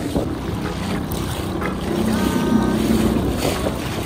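A small fishing boat's motor running steadily under way, with wind buffeting the microphone and water noise.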